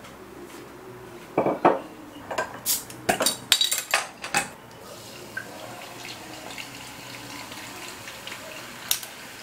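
Dishes and cutlery clattering: a quick run of clinks and knocks in the first half, then a faint steady background.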